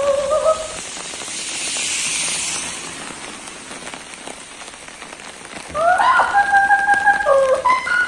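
An Amazon parrot singing in a clear voice, holding notes and jumping up and down in pitch, briefly at the start and again from about six seconds in. In between comes a swelling hiss of spraying water.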